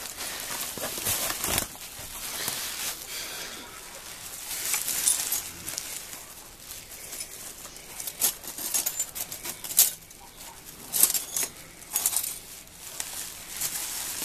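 Shards of a clock case's shattered glass pane clinking as they are picked over, amid plastic and bubble-wrap packing rustling, with a few sharp clinks in the second half.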